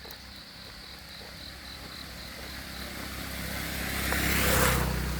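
A motor vehicle approaching and passing close, its engine and tyre noise swelling to a peak about four and a half seconds in and then fading. Crickets chirp in quick, regular pulses through the first half.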